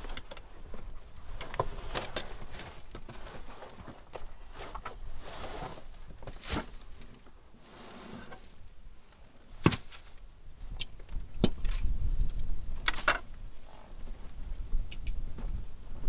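Boots shuffling on dry leaves and rocky ground and the rustle of a backpack being taken off and set down, with several sharp clicks and knocks of its buckles and gear.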